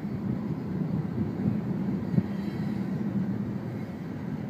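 Coal hopper cars of a freight train rolling past, with a steady rumble of wheels on rail and a single sharp knock about two seconds in. Wind buffets the microphone.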